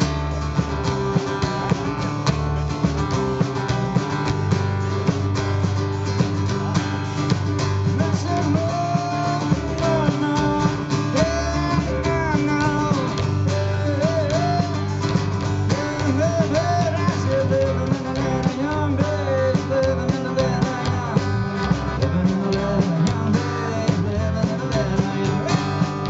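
Live blues-rock band playing: acoustic guitar over a drum kit and a bass line. A wavering lead melody that bends in pitch comes in about eight seconds in and runs through the middle.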